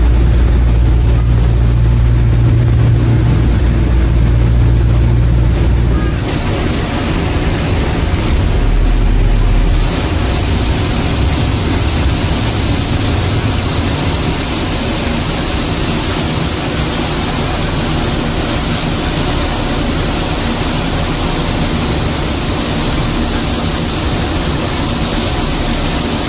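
High-speed passenger boat under way: a steady low engine drone mixed with rushing wind and water noise. About six seconds in the low drone drops back and an even rushing hiss of wind and wash takes over as the boat comes in to berth.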